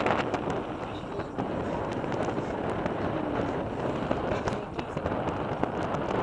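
Steady rushing noise inside a moving cable-car cabin, crowded with many small crackles and pops throughout.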